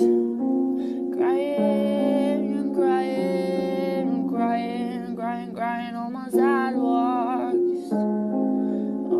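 A singer's voice carrying a melody over sustained piano or keyboard chords.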